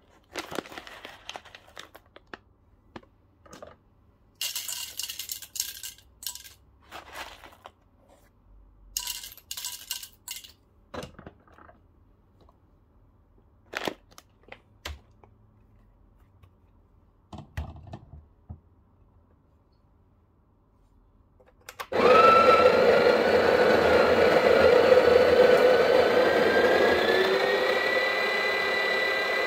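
A paper coffee bag rustles and crinkles as it is handled, with scattered small clicks. About two-thirds of the way in, the Breville Barista Pro's built-in conical burr grinder starts and grinds steadily and loudly, its pitch rising a little near the end.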